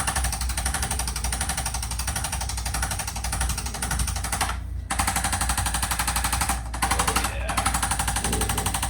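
Handheld percussion massage gun hammering rapidly and steadily on the back muscles, with its motor humming underneath; it stops briefly about halfway through and twice more near the end.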